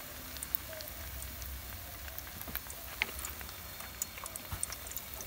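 Egg-battered fish fillet frying in a pan of hot oil: steady sizzling with scattered small pops and crackles.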